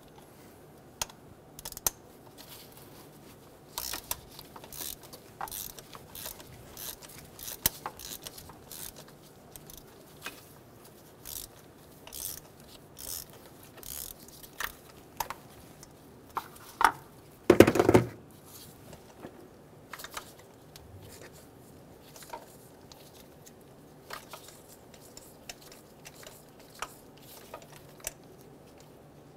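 Hand ratchet clicking as a spark plug is backed out with a 16 mm spark plug socket on an extension: a run of short, irregular clicks, a single louder knock about two-thirds of the way through, then a few faint clicks as the extension is turned by hand.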